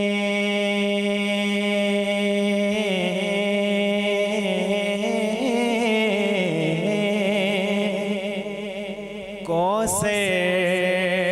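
A young man's solo voice singing a naat without instruments, holding long drawn-out notes with slow melismatic turns. It grows softer for a moment near the end, then a quick rising swoop.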